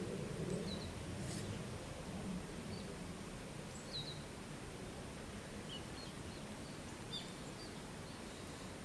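Small birds chirping now and then, short high calls, over a steady outdoor background hiss.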